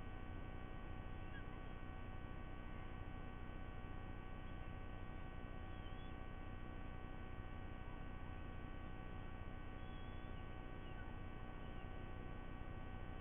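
Steady electrical hum and hiss from a live nest-cam's microphone, with a few faint, short high chirps of distant birds scattered through.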